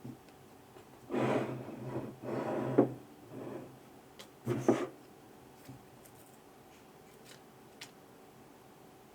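Hands working on small parts: four short rubbing, scraping sounds in the first five seconds, with a sharp click in the middle, then a few faint ticks.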